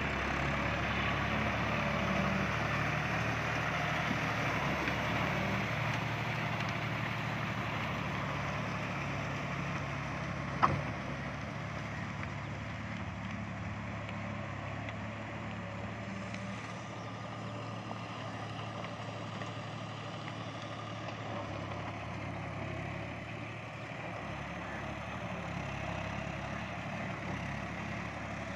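John Deere 5310's three-cylinder diesel engine running steadily under load as the tractor works a Shaktiman rotavator through a flooded paddy field, growing a little fainter in the second half. A single sharp click about ten and a half seconds in.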